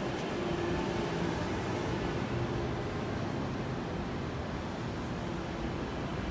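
Steady background noise of an open concrete parking structure: an even low rumble and hiss with faint steady tones.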